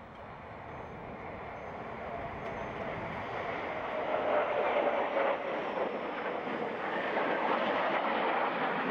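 Jet aircraft noise, a steady rushing roar that swells gradually louder as if the jet is approaching.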